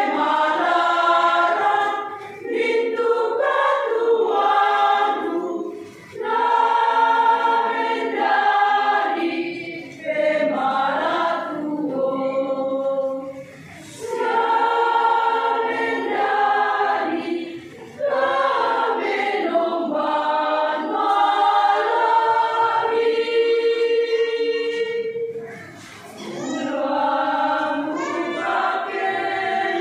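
Women's choir singing a Christmas song in phrases of a few seconds each, with brief breath pauses between them.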